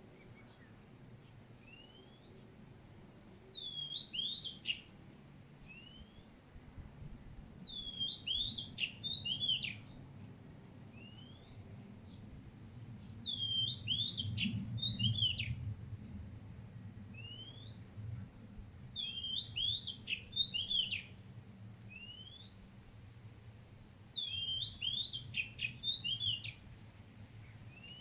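A bird singing a short phrase of chirping notes, repeated five times about every five to six seconds, with single rising whistled notes in the gaps between phrases, over a faint low rumble.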